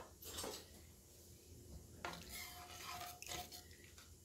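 A spoon stirring thick creamy chicken soup with shredded chicken in a Dutch oven: faint wet swishes and light scrapes against the pot, in a few separate strokes.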